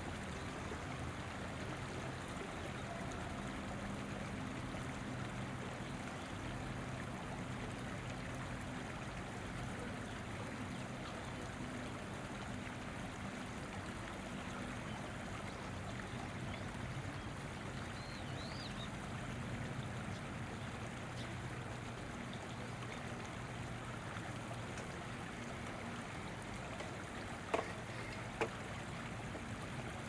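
River water running steadily, with a low steady hum underneath. Two sharp clicks stand out near the end.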